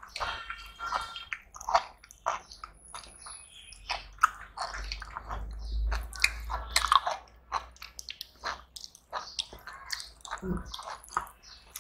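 Close-up eating sounds: chewing with many short sharp smacks and clicks, and rice being mixed with curry by hand on steel plates.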